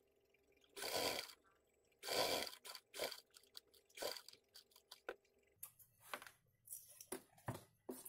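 Pink satin bag lining and a leather bag body being handled and rustled, in short irregular crinkly bursts, the loudest about one and two seconds in, then lighter clicks near the end.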